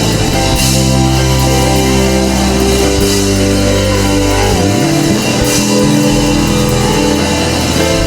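Live church worship band playing an instrumental passage: sustained keyboard chords over bass and drums with cymbal wash.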